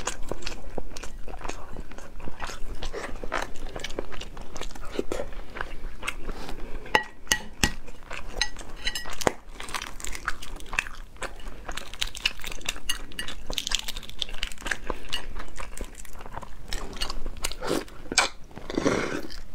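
Close-miked eating of half-incubated chicken eggs (balut-style 活珠子): chewing and biting, with many small crackles and clicks as the eggshell is cracked and peeled by hand.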